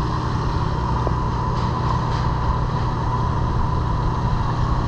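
True commercial refrigerator's condensing unit (compressor and condenser fan) running steadily, a constant hum with a steady higher tone above it. The system's running pressures read slightly low on its R134a charge.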